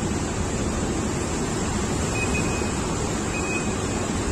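Steady rushing background noise of a busy indoor hall, with two faint short high tones about two and three and a half seconds in.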